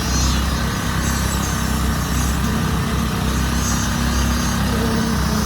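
Heavy truck diesel engine running steadily with a deep, even hum.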